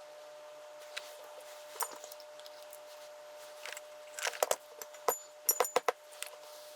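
Small metal lock parts and tools clicking and clinking in a scattered run as lock cylinders are rekeyed, loudest in a burst of sharp clinks with brief ringing a little past the middle, over a faint steady hum.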